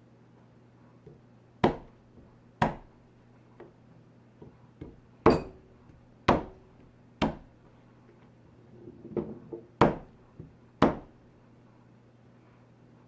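A knife striking cucumbers on a wooden cutting board: about seven sharp, loud whacks roughly a second apart, often in pairs, with softer taps and knocks between them.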